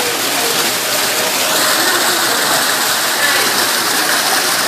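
Water falling and splashing into a pond: a steady rush that grows a little louder about a second and a half in.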